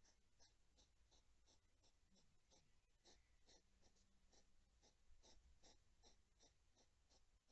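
Faint, rhythmic crunching, about two to three times a second: a hedgehog chewing food.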